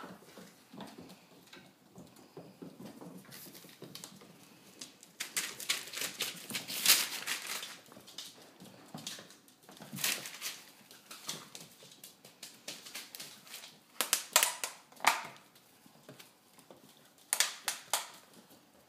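Six-week-old Vizsla puppies playing on a hardwood floor: claws clicking and scrabbling, with knocks and scuffles that come in several loud clusters.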